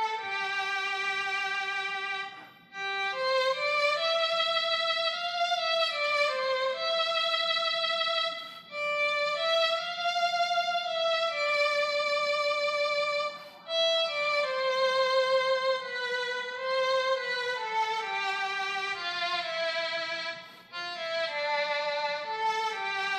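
Roland Aerophone digital wind instrument playing a slow melody with vibrato on the held notes, in phrases broken by short breath pauses.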